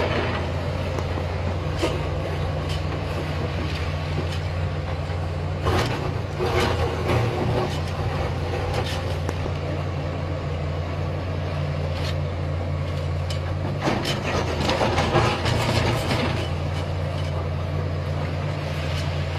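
Excavator's diesel engine running steadily under work, with occasional short knocks from the working machine scattered through.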